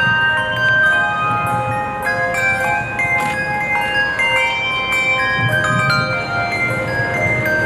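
Handbell choir playing a tune: bell notes struck one after another, each ringing on and overlapping the next.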